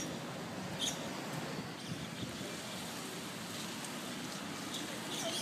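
Steady outdoor city background noise after a rain shower, with a few short high chirps, most of them near the end.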